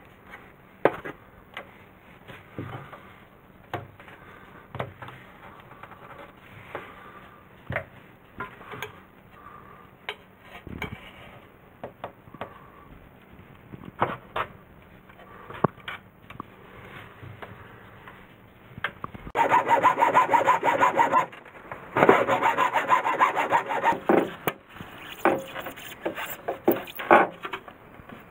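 Old caulking being scraped off the edge of a washbasin and wall panel with a small blade, short scrapes and clicks at irregular intervals. About two-thirds of the way through come a few seconds of much louder, continuous rasping.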